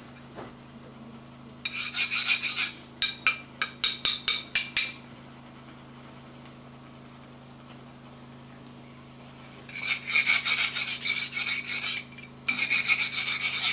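Metal sand-funnel (chak-pur) being rasped with a metal rod, so that coloured sand trickles out in a thin stream: rapid runs of scraping strokes in two spells, with a pause of a few seconds between.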